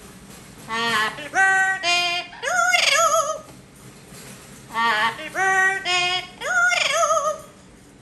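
Amazon parrot singing a wordless tune: several runs of short, high, wavering notes, each sliding up at the start, with brief pauses between the runs.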